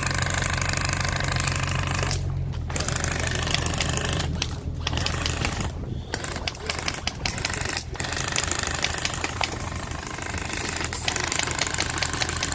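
Airsoft M132 minigun firing long rapid-fire bursts, broken by a few short pauses, over the steady hum of the vehicle's engine.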